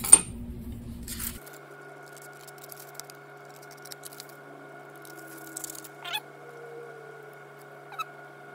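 Scissors making a few quiet snips through a card handle template, over a steady background hum. A sharp click comes right at the start.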